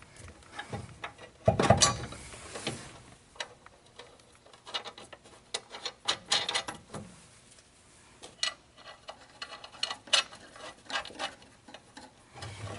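Small metal clicks, taps and rattles of nuts, bolts and a steel mounting bracket being handled and hand-threaded against a truck frame, with the loudest knock about one and a half seconds in.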